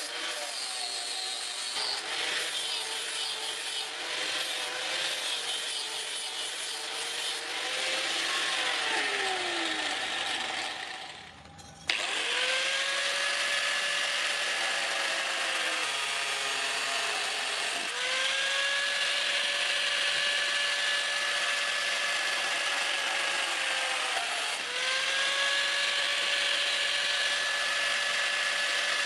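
Electric angle grinder grinding a flat steel bar. Near ten seconds in its pitch falls away as it winds down, and after a short lull it starts again suddenly. It then runs in three steady stretches of whine with short breaks between passes.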